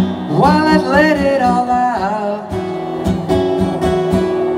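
Acoustic guitar strummed steadily while a man sings a drawn-out line that stops about halfway through, leaving the guitar playing alone.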